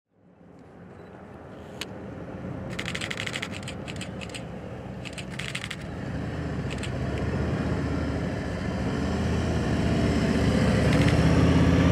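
Police motorcycle engines approaching and passing close, a low engine drone that grows steadily louder. Brief patches of rapid clicking come about three and five seconds in.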